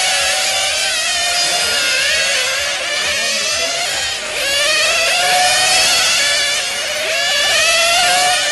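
Several 1/10 scale nitro RC touring cars' small two-stroke glow engines running at high revs together, their high-pitched whine rising and falling over each other as the cars accelerate and brake through the corners.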